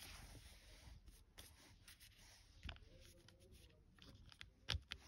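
Faint rustling and a few light clicks from a cardboard earring card being handled, the loudest click near the end.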